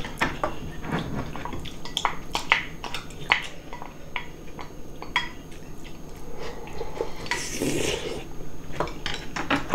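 Chopsticks and spoons clicking against ceramic bowls and side dishes during a meal, in scattered light taps, with a brief slurp of hot nurungji porridge about seven and a half seconds in.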